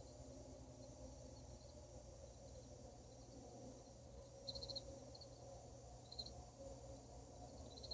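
Faint night ambience: a few short, high insect chirps, sparse and irregular, over a low steady hum.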